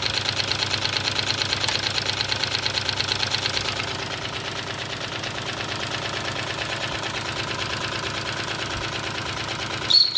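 Wilesco D32 twin-cylinder model steam engine running at speed with a rapid, even beat, a little quieter about four seconds in. Right at the end its steam whistle starts to blow a steady high note.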